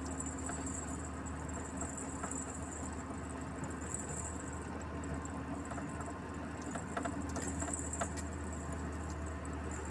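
A truck's engine running at a steady cruise with tyre and road noise, heard from inside the cab as a constant low drone. A few light rattles come about seven to eight seconds in.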